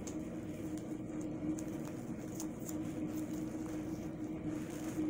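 A steady, even-pitched mechanical hum, with faint rustling and soft ticks from a t-shirt's fabric being handled.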